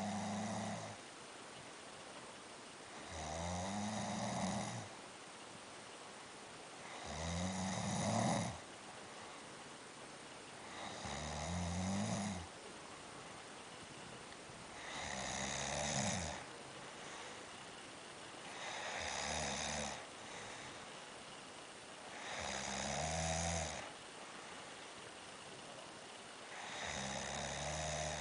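Heavy snoring: a long snore about every four seconds, each lasting around a second and a half, with quiet in-between breaths.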